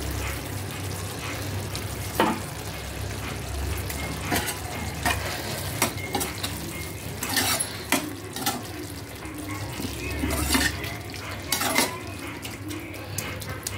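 A spoon stirring cauliflower curry in a frying pan, with irregular scrapes and knocks against the pan over a steady low sizzle of frying. It is the salt being mixed through as it is adjusted.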